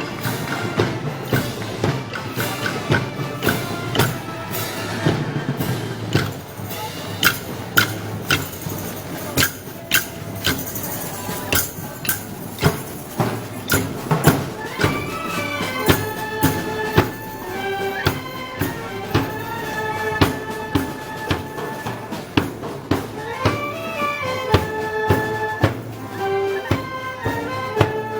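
Moros y Cristianos festival band music: a steady drumbeat with cymbal-like strikes, joined about halfway through by a melody of held notes.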